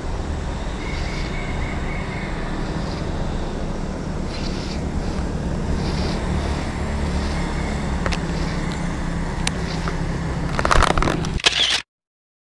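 Suzuki Raider 150 Fi motorcycle's single-cylinder engine running steadily while riding, under a constant rush of noise. The noise swells louder about ten seconds in, then the sound cuts off abruptly near the end.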